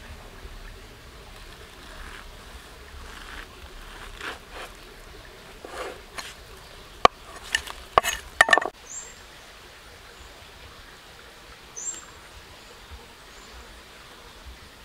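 Kitchen knife chopping through the root base of an enoki mushroom cluster onto a wooden chopping board: softer cutting and scraping, then five quick sharp knocks about seven to nine seconds in.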